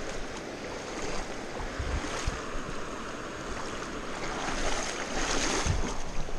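Shallow creek water rushing and splashing around a wader's feet and a dip net as he kicks through the riffle rocks to drive darters into the net. The splashing swells louder about five seconds in, with a few dull bumps along the way.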